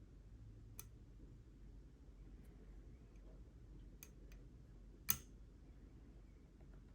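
A few faint, sparse metallic clicks from a hook pick and tension wrench working the pins of a Schlage Everest pin-tumbler lock during picking, with one sharper click about five seconds in.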